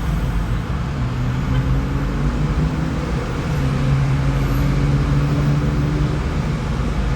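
Steady low vehicle rumble with a low hum that drifts slightly in pitch.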